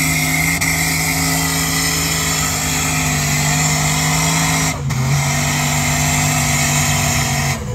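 Steady mechanical drone from an off-road four-wheel drive working on a steep slope. It holds one pitch, then drops slightly about five seconds in.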